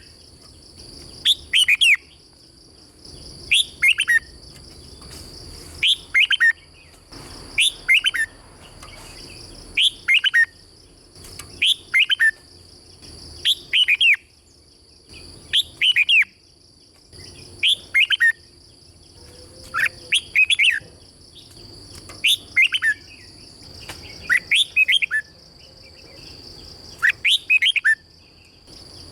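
Red-whiskered bulbul singing: short, rapid phrases of a few quick, bright whistled notes, repeated about every two seconds. A steady high-pitched drone runs underneath.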